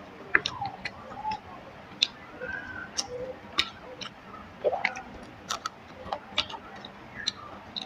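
Close-miked eating: wet mouth clicks and lip smacks at an irregular pace as someone chews rice and curry.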